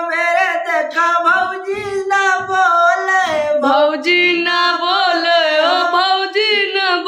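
A single voice singing a folk melody unaccompanied, in long, drawn-out notes that waver and bend in pitch.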